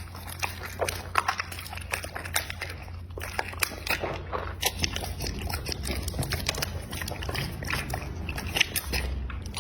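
Dog chewing and biting into food, with irregular wet crunches and clicks of teeth.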